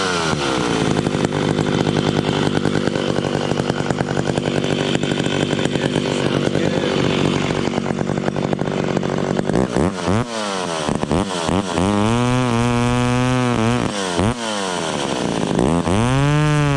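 Vintage McCulloch ProMac 55 two-stroke chainsaw with a custom exhaust, running at steady revs for about ten seconds, then revved up and down several times.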